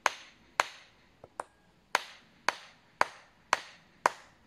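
Wooden mallet striking the top of an axe head set on a log, driving the blade down to split it: a steady run of sharp knocks about twice a second, eight strong blows and one lighter tap.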